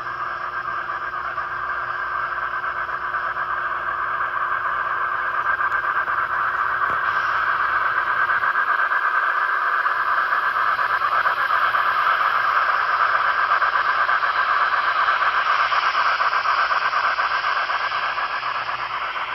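N-scale model steam locomotive and its hopper cars running past at close range: a steady hissing, squealing rattle of motor and wheels on rail that swells as the train nears and eases slightly near the end.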